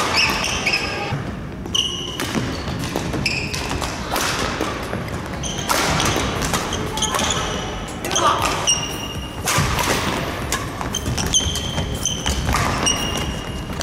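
A badminton doubles rally: rackets striking the shuttlecock in sharp hits, sneakers squeaking on the wooden court floor, and quick footsteps.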